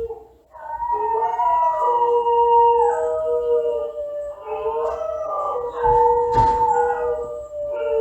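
Several dogs howling together in long, overlapping, gliding notes at different pitches, with a brief pause about half a second in. One short sharp sound cuts through about six and a half seconds in.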